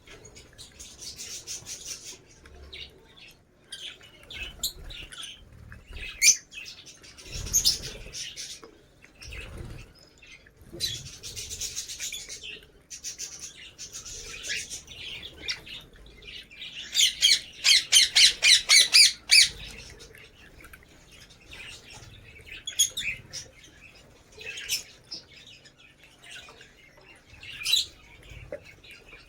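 Lovebirds chattering and squawking in irregular bursts of sharp, high calls, with a rapid run of about a dozen loud shrieks a little past the middle. A couple of dull thumps come early.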